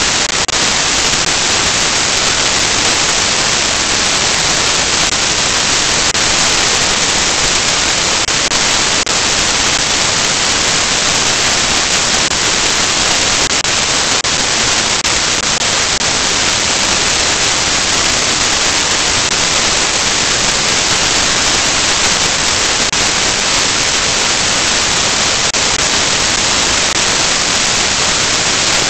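Loud, steady static hiss: an even rush of noise, strongest in the upper range, with no other sound in it.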